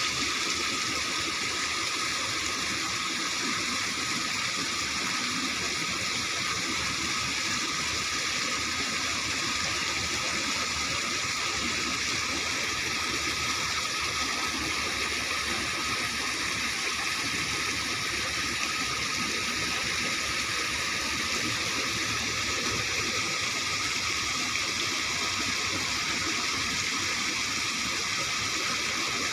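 Water gushing steadily over a concrete edge, an unbroken rushing noise that does not change.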